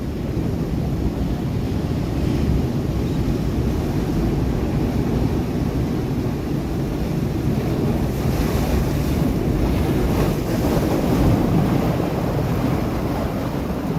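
Sea waves breaking on rocks: a continuous deep rumble of surf, with a surge of hissing spray about eight seconds in that fades a few seconds later. Wind buffets the microphone throughout.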